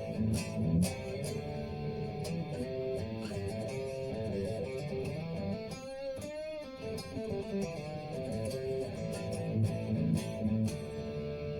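Electric guitar, a Telecaster with Bare Knuckle Nomad pickups, played through a Positive Grid Spark 2 amp on a high-gain Mesa Rectifier-style metal preset: picked chords and riffs, with a single held note wavering in pitch about six seconds in.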